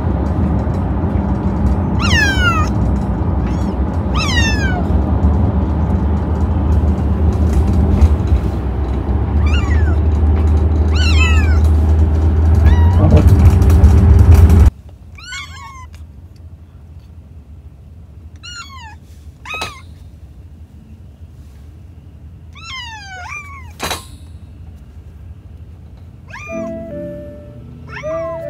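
Kittens meowing again and again from inside pet carriers, each meow falling in pitch, unhappy at being shut in. A loud low rumble runs under the first half and cuts off suddenly, and music starts near the end.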